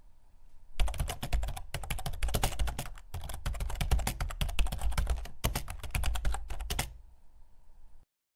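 Fast, irregular clicking like typing, starting about a second in, running in four bursts broken by short pauses, and stopping about seven seconds in.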